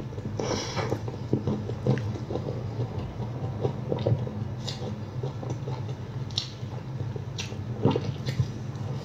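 Close-miked biting and chewing of soft bread, with irregular wet mouth clicks and smacks, over a steady low hum.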